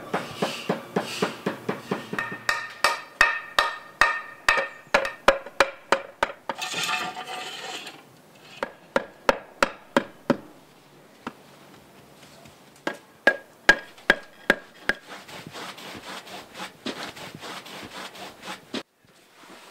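Hand hammer tapping repeatedly on the edges of stacked curved dark tiles, about two to three sharp taps a second, each with a short ringing note. The taps stop about halfway, come back in a short run, and give way to a faint brushing near the end.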